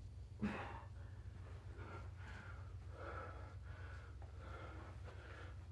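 A man breathing hard after a set of bodyweight exercise, quick heavy breaths in a steady run, with a short sharp sound about half a second in.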